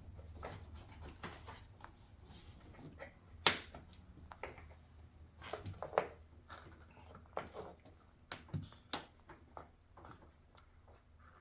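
Scattered clicks and light knocks of hands working the plastic air filter housing and its clips, with a few sharper snaps about 3.5, 6 and 9 seconds in.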